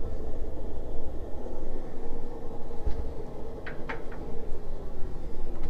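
Steady low mechanical hum in a small cabin, with a few light clicks near four seconds in as a glass shower door is handled and pushed shut by its metal handle.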